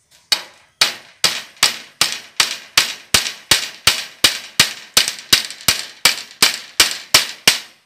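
Small claw hammer driving nails into a wooden frame: a steady run of about twenty sharp blows, a little under three a second, that stops shortly before the end.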